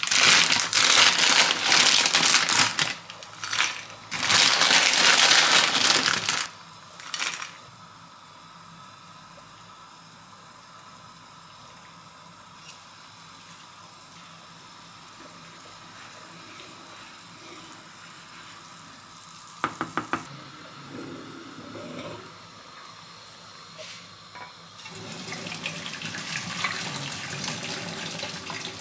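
Dry pasta poured from a bag into a pot of boiling water, two loud noisy pours in the first six seconds. A quieter steady background follows, with a few sharp clicks about twenty seconds in, and near the end a rising rush of water as the pot is tipped to drain the pasta into a colander.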